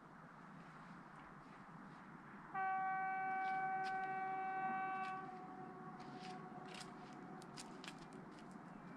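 Horn of a Soviet-built class 234 diesel locomotive, 234 278, at a distance: one steady single-tone blast of about two and a half seconds, starting about two and a half seconds in and dying away with an echo. A faint steady rumble of noise lies under it.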